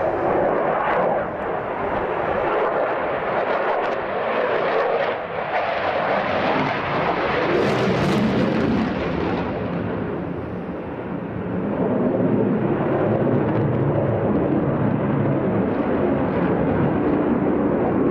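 Eurofighter Typhoon FGR4's twin Eurojet EJ200 turbofans in full display flight, a loud continuous jet noise with afterburner lit as it pulls up. The sound is sharpest and highest about eight seconds in, and deeper and heavier from about twelve seconds on.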